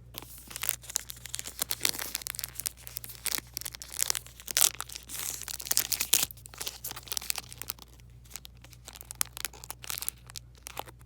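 Wrapper of a vintage Superman Man of Steel Premium Edition trading card pack being torn open and crinkled by hand: a dense run of crackles, thinning out after about seven seconds.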